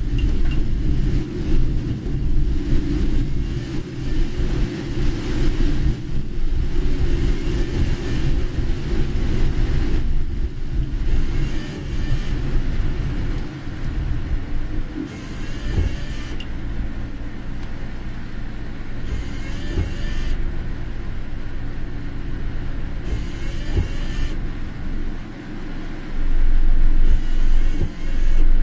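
Car running on a rain-soaked road, heard from inside the cabin: a steady low rumble of engine and tyres with a wet hiss. A brighter hiss swells about every four seconds, and the rumble grows louder near the end.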